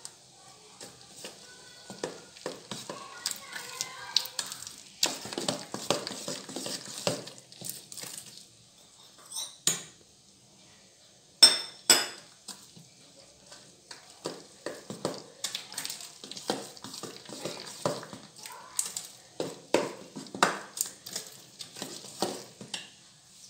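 A spoon stirring and scraping through thick banana batter in a bowl as flour is mixed in, with irregular clinks of the spoon against the bowl; the sharpest clinks come about ten and twelve seconds in.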